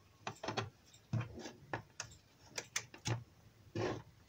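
Irregular light clicks and taps of an Arduino Uno circuit board and a plastic breadboard being handled on a tabletop, with a short scrape near the end.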